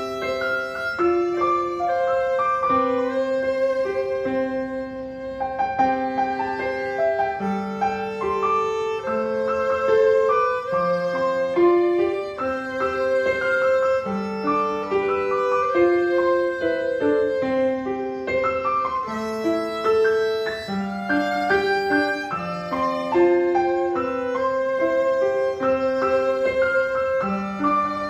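A newly bought violin bowed through a melody of held notes with piano accompaniment. The player calls it a little out of tune.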